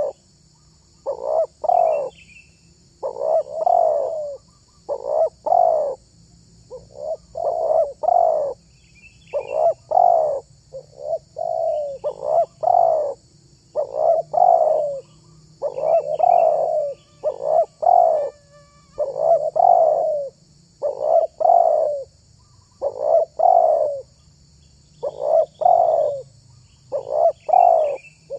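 Spotted dove (tekukur) cooing: repeated phrases of two or three falling coo notes, one phrase every one to two seconds. A few faint high chirps sound now and then.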